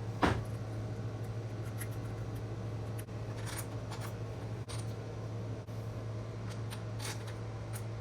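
A sharp metallic clank just after the start, then a scattered handful of light metallic clicks from hand tools and engine parts being handled, over a steady low hum.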